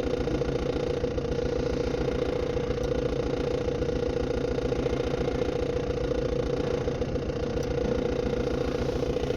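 Maruti Dzire's four-cylinder diesel engine idling steadily while misfiring. It has an open injector circuit on cylinder 1 (fault code P0201).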